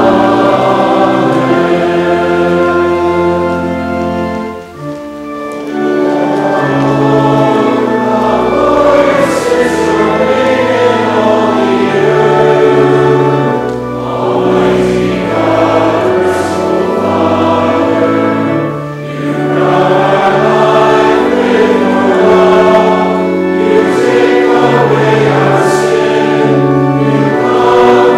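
Church congregation singing a hymn, many voices together over sustained low accompanying chords, with a short break about five seconds in.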